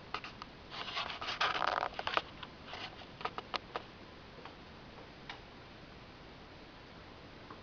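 Guinea pigs stirring in their cage: a burst of rustling and crunchy clicks about a second in, then a few scattered clicks that die away after about four seconds.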